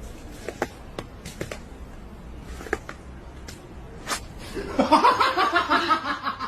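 A few scattered light knocks, then a person laughing for about a second and a half, starting near the end.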